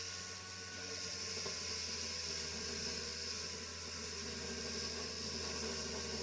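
Steady low mechanical hum with a constant hiss, unchanging throughout, with no distinct knocks or clicks.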